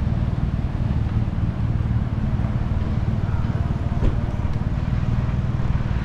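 City street ambience: a steady low rumble of road traffic, with a single sharp knock about four seconds in.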